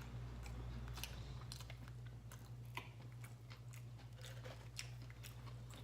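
A person chewing a mouthful of food, with irregular small mouth clicks and smacks.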